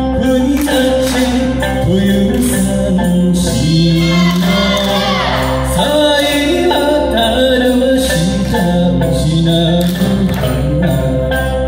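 Live amplified performance of an Okinawan folk song: voices singing the melody over a sanshin and steady accompaniment with a jingling percussion beat, played through a PA system.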